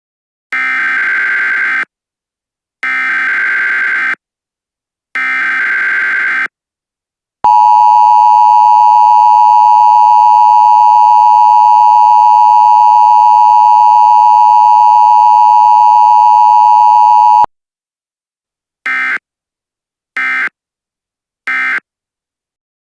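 Emergency Alert System tones. Three harsh data bursts of about a second each make up the alert header. Then comes the loud, steady two-pitch attention tone, held for about ten seconds, and three short end-of-message bursts close it out.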